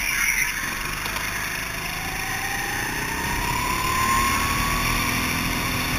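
Go-kart engine running under acceleration, its pitch dipping at first and then climbing steadily for about three seconds as the kart speeds out of a curve, before levelling off.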